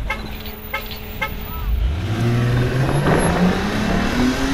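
Cars pulling away hard from a standstill, side by side. From about two seconds in, one long engine pull gets louder and rises steadily in pitch as the revs climb.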